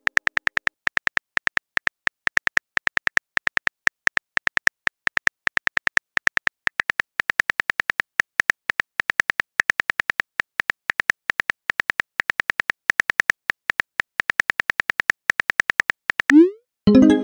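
Smartphone keyboard typing sound effect: a rapid stream of short, sharp key clicks, about six a second. Near the end the clicks stop and a short rising whoosh plays as the message is sent.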